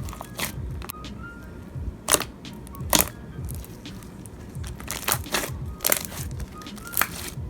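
Hands squishing and poking a soft slime, giving sharp, irregular pops and clicks as air pockets burst, about one or two a second.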